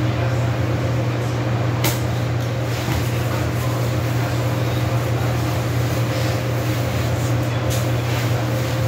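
A steady low hum, with a few brief knocks about two seconds in and near the end.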